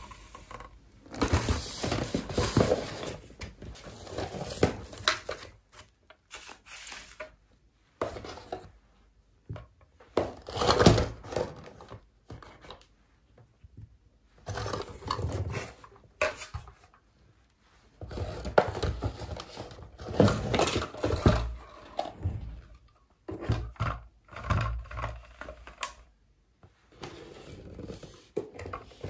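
Hollow plastic toy pieces clicking and knocking as they are lifted out of a cardboard box and set down by hand, with cardboard scraping and plastic wrap crinkling. The noises come in irregular bursts with brief pauses between.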